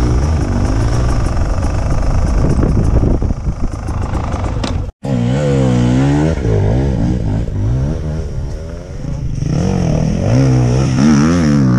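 Dirt-bike engine running. After a cut about five seconds in, an enduro motorcycle passes close by on a dirt track, its engine revving up and down over and over.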